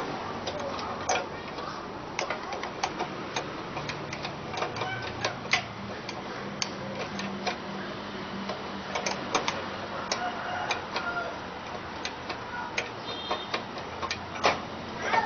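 Irregular light clicks and taps, a few a second, of small parts and tools being handled while an electric fan is taken apart, with a sharper click near the end.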